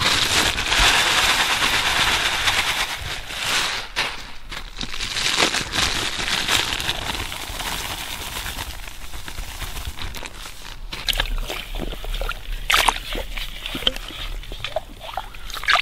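Plastic bag crinkling as dry spices are shaken out of it into a bowl of brine, densest in the first few seconds. Scattered crackles follow, then hands sloshing and rubbing the meat in the liquid near the end.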